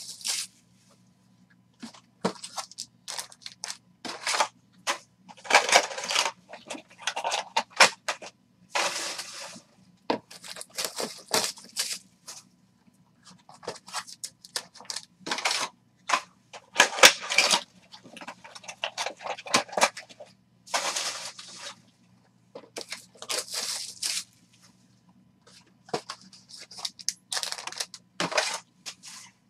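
Plastic shrink-wrap being torn and crumpled off trading-card boxes, with foil-wrapped card packs handled: irregular bursts of crinkling with short pauses between them. A faint steady low hum runs underneath.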